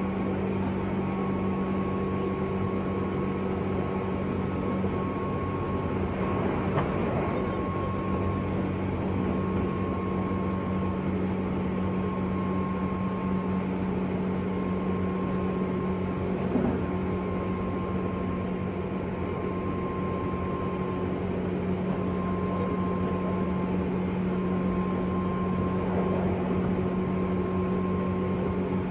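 JR West 201 series electric train running at speed, heard inside a motor car: a steady hum of motors and running gear with a constant low tone and a fainter higher one. Two brief knocks from the track come about 7 and 16 seconds in.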